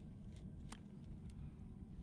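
Hoof knife paring a horse's hoof: a few faint, short scrapes over a steady low rumble.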